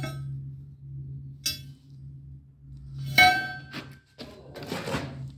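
Metal clinking: three sharp strikes that ring, the third the loudest. A few short scraping or rasping noises follow, over a steady low hum.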